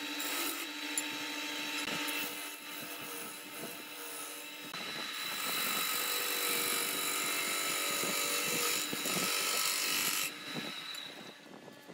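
Small wood lathe running while a hand-held turning tool cuts into the spinning wooden blank, giving a steady hum under the hiss and scrape of wood being shaved off. The cutting grows louder about five seconds in and eases off after about ten seconds.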